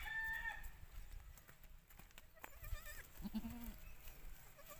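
Goats bleating faintly: a short higher call right at the start, then a brief, lower call about three seconds in, with a few faint clicks between.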